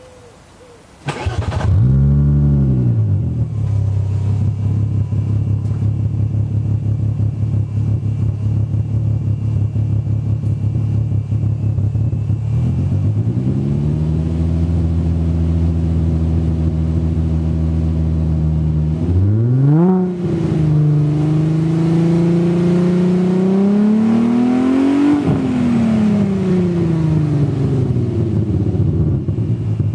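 A VW Golf VR6's 24-valve VR6 engine, heard at the tailpipe, starts about a second in, flares and settles to a steady idle. Around the middle the revs are raised and held a little higher. Then comes one quick rev blip, and a slower climb and fall in revs before it drops back to idle near the end.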